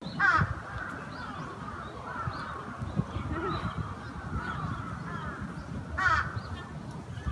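Birds giving repeated harsh calls in an open park, the loudest just at the start and again about six seconds in, over a steady low rumble.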